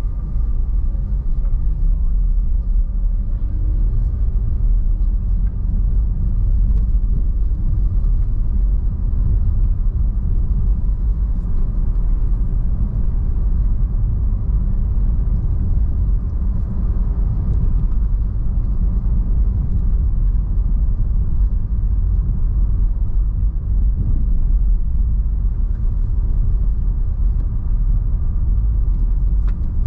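Car being driven along a paved road: a steady low rumble of engine and tyres.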